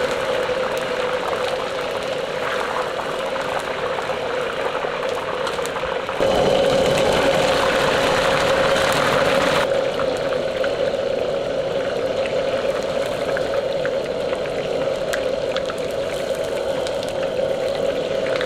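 Battered chicken pieces deep-frying in a wok of hot oil, a steady sizzle and bubbling over a constant low roar. About six seconds in the noise grows louder for around three seconds, then settles back.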